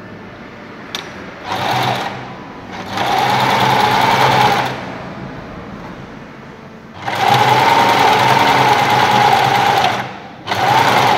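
Willpex WP653 household sewing machine stitching a blind hem, running in four stop-start bursts, the two middle ones longest, with short pauses between them.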